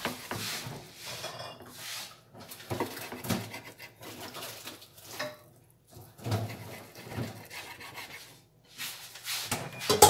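Chef's knife slicing raw salmon fillet on a wooden cutting board: irregular scraping and rustling strokes with short pauses between them, and a sharp knock near the end.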